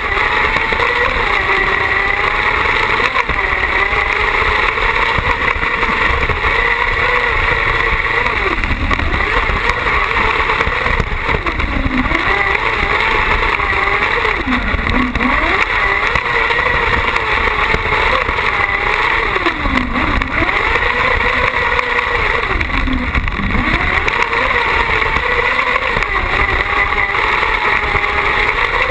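Carcross buggy's engine running hard at high revs, heard on board. The revs dip sharply about four times and climb again as the car goes through the corners of the dirt track.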